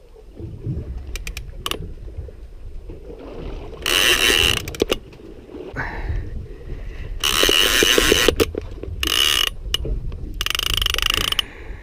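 Large conventional saltwater reel on a heavy boat rod ratcheting in four rasping bursts, the longest over a second, with scattered clicks between them, as the reel is worked against a hooked fish.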